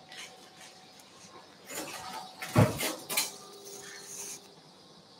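Surgical handling sounds, rustling gauze and instruments clicking, with one loud knock about halfway through. Soon after, an electrosurgical unit gives a steady tone for about a second with a faint hiss while the cautery pencil is used on the bleeding wound.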